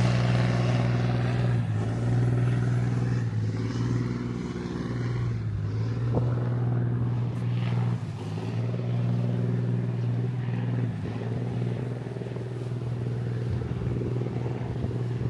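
A motor engine running steadily: a low, even hum that shifts slightly in pitch a few times.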